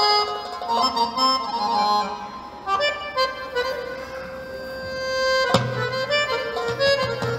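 Live baladi improvisation led by an accordion playing held, wavering melodic phrases. A single sharp hit sounds about five and a half seconds in, and a low held note then joins underneath.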